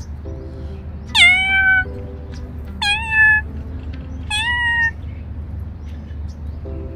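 A tabby cat meowing three times, about a second and a half apart, while being stroked. Each meow starts high, drops quickly in pitch and then holds steady.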